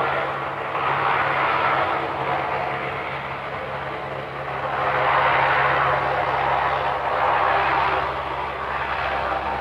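Lockheed C-130 Hercules rolling along the runway with its four Allison T56 turboprop engines running: a steady low propeller drone under a rushing whine that swells twice.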